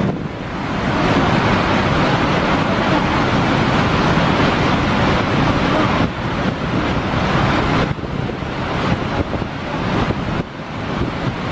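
Heavy rushing of water released from a dam, a loud steady torrent with wind buffeting the microphone; the sound shifts briefly about six and eight seconds in.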